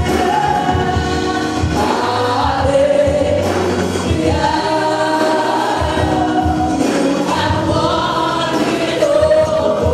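Gospel song: a woman sings lead into a microphone, holding long notes over musical accompaniment, with other voices singing along.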